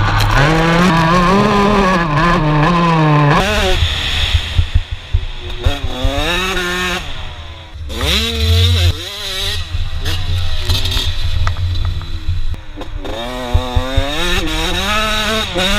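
Motocross bike engine revving hard, its pitch climbing and dropping again and again as the throttle is opened and chopped through the gears. Wind rumble and knocks from the track bumps run underneath.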